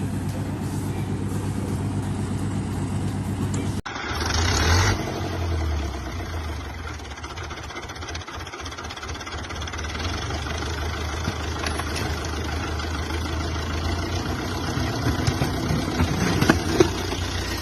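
Off-road vehicle engine running steadily; after an abrupt cut about four seconds in, another vehicle's engine surges louder for about a second, then runs on with a low, steady hum.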